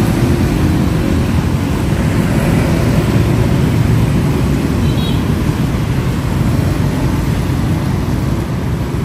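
Steady road traffic noise of a busy city street.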